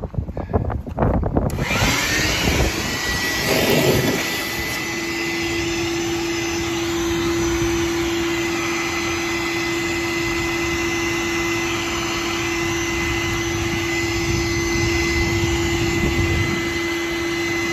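Wet/dry shop vacuum switched on about a second and a half in, then running steadily with a constant whine while its hose sucks on a clogged drain line.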